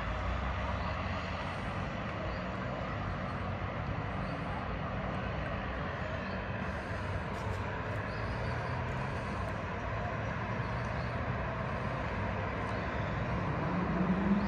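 Steady wash of distant road-traffic noise from the city below, an even hum without distinct passing vehicles; a low steady drone joins in near the end.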